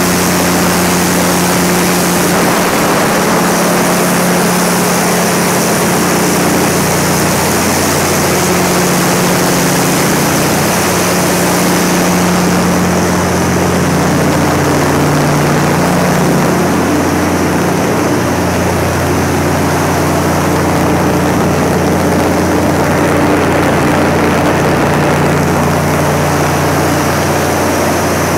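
Cummins 350 kW standby diesel generator set running at a steady governed speed, loud and unchanging. Its engine is an NTTA855 turbocharged inline-six diesel.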